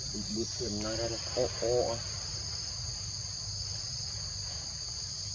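Insects buzzing as a steady, high-pitched drone. A short stretch of pitched, wavering voice rises over it in the first two seconds.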